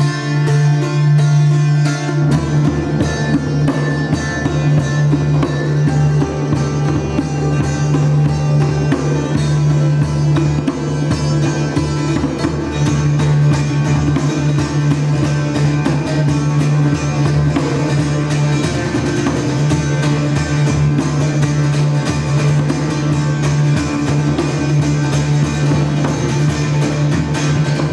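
Live instrumental music: a steady low drone under plucked strings, with hand drums joining about two seconds in.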